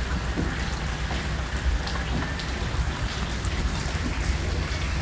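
Heavy rain falling steadily, with scattered single drops ticking close by.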